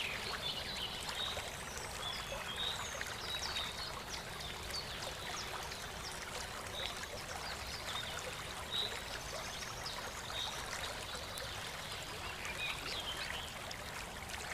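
Light rain pattering steadily, with short chirps of birds calling every second or two.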